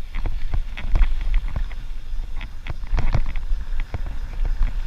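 Wind buffeting the microphone of a moving bicycle, with a steady low rumble and many irregular clicks and knocks of the bike rattling over bumps.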